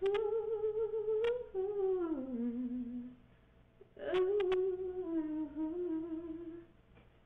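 A woman's voice softly singing a slow, wordless tune to herself in two long held phrases with a short pause between. The first phrase slides down in pitch near its end.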